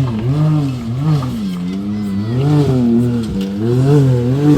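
Off-road vehicle engine revving up and down repeatedly, its pitch rising and falling about once a second.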